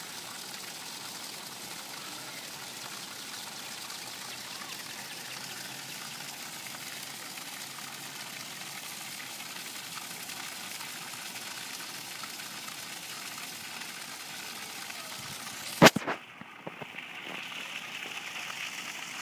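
Steady rush of flowing water. Near the end there is a single sharp knock, and the hiss drops out briefly before returning.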